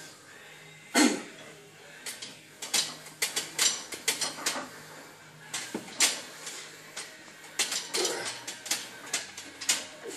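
Iron plates and collars on a heavily loaded barbell clanking and rattling as the bar is taken out of a squat rack onto the lifter's back. One loud clank comes about a second in, then a run of irregular sharp clicks and knocks.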